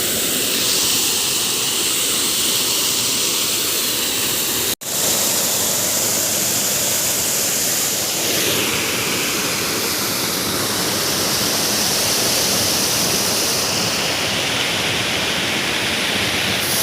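Water rushing steadily over a small man-made waterfall beneath a bridge, a loud continuous roar of falling water with a momentary dropout about five seconds in.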